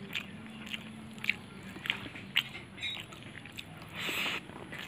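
Close-up mouth sounds of eating rice and fish curry by hand: wet chewing with sharp lip smacks and clicks, the loudest about two and a half seconds in, and a short rushing noise near the end as another handful goes into the mouth.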